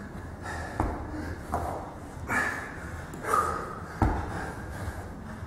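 A man breathing hard under exertion, with forceful exhales and gasps about once a second as he works through sit-ups with a bumper plate, and a sharp thump about four seconds in.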